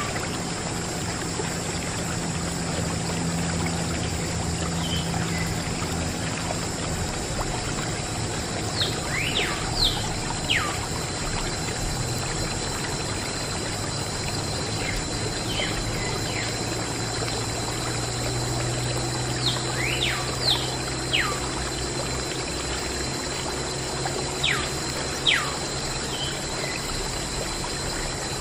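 A thin stream of water trickling and pouring from a small plastic tube onto a toy tractor, splashing off it onto the board beneath. Birds chirp now and then, a few short calls at a time.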